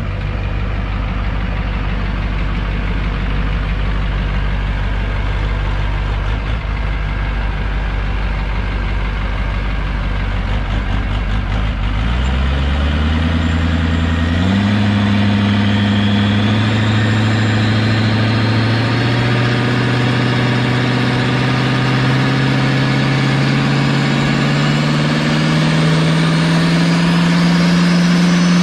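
Diesel Chevrolet Silverado pickup idling, then brought up in revs in two steps about twelve to fourteen seconds in. It is held there with the pitch creeping slowly upward, as a diesel drag truck builds boost on the line, and the revs shoot up right at the end.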